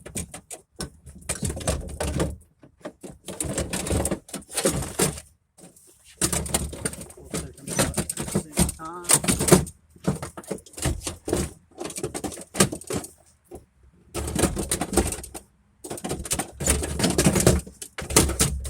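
Metal window regulator and motor assembly rattling, clanking and scraping against the inside of a pickup's rear door as it is worked out through the door opening, in uneven clusters of sharp knocks with short pauses.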